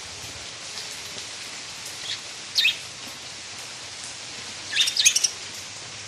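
Budgerigars chirping: a couple of short chirps about two and a half seconds in, then a quick burst of chirps near the end, over a steady hiss of rain.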